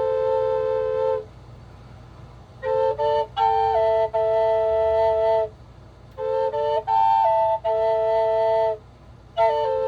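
Solo flute playing a slow melody of long held notes in phrases, with short pauses between the phrases.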